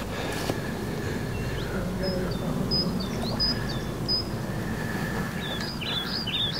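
Small songbird singing in short, high chirps and whistles, in bursts about two seconds in and again near the end, over a steady low rumble of outdoor background noise.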